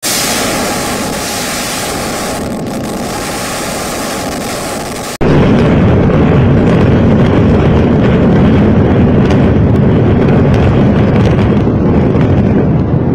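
Collapse of the 32-storey Supertech twin towers in a controlled demolition. A steady hissing roar cuts abruptly about five seconds in to a louder, deep, continuous rumble.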